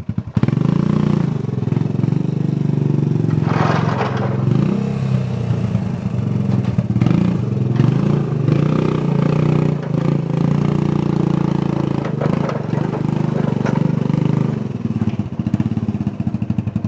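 ATV engine running and revving under load as it tows a riding mower on a chain, with a brief scraping clatter about four seconds in.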